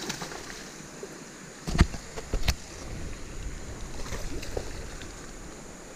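Steady rush of creek water, with a few sharp knocks about two seconds in, the loudest sounds here.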